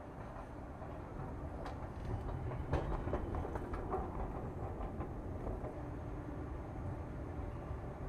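Passenger train running: a steady low rumble that swells about two seconds in, with a few clattering knocks from the wheels at its loudest.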